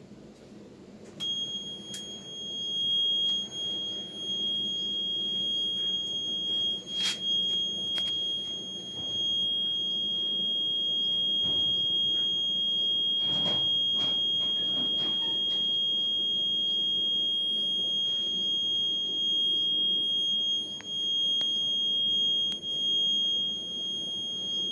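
Alarm buzzer of a Terasaki WE300 ship's watch-free alarm system sounding one steady, high-pitched tone under test, starting about a second in and holding on. A few short clicks and knocks sound over it.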